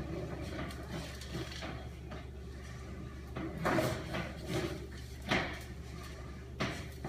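Sewer inspection camera gear in use: a few short knocks and scrapes, most of them in the second half, over a steady low electrical hum.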